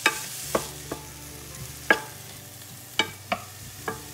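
Onion and French shallot frying in duck fat in a pan with a steady sizzle, being browned lightly, while a utensil stirs them and knocks against the pan about seven times at irregular intervals.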